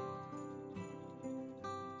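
Background music: a melody with a new note struck about every half second.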